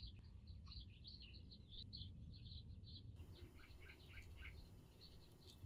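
Faint chirping of small birds, many short repeated chirps, over a low steady hum, with a single sharp click near the end.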